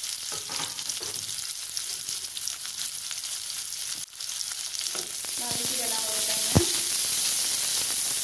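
Sliced onions, garlic and green chillies sizzling in hot oil in a kadai, the sizzle getting louder about five seconds in as they are stirred. One sharp knock about six and a half seconds in.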